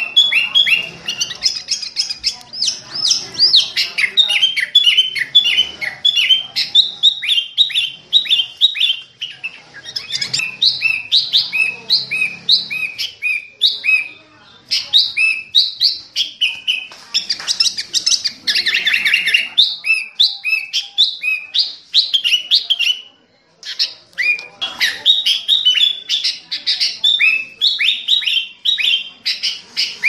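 Sooty-headed bulbul (kutilang) singing, a loud continuous stream of quick chirping notes with two short breaks, about halfway and three-quarters through.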